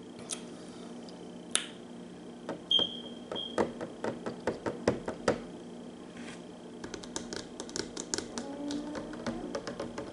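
Close-miked mouth sounds from sipping a drink through a straw: quick irregular lip and tongue clicks and smacks, in a cluster about two to five seconds in and a faster run from about seven seconds on.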